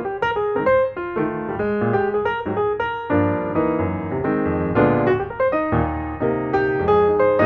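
Background music: solo piano playing a flowing run of notes over bass notes.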